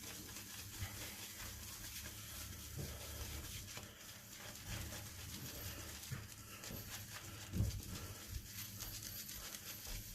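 Damp shaving brush being swirled with light pressure over a puck of Stirling shaving soap to load it: a faint, steady scrubbing swish, with a louder bump about seven and a half seconds in.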